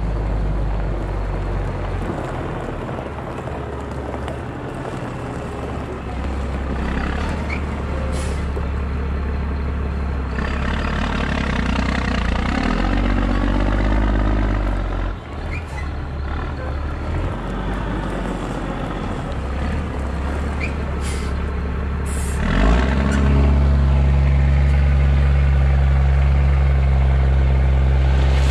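Chevrolet C8500 dump truck's diesel engine running as the truck backs up, with a few short air hisses. About 23 s in the engine speeds up and holds a steady, louder pitch while the hydraulic hoist raises the loaded dump bed.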